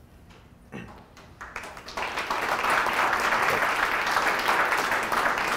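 Audience applauding at the close of a talk: quiet at first, the clapping starts about a second and a half in, builds quickly and then holds steady.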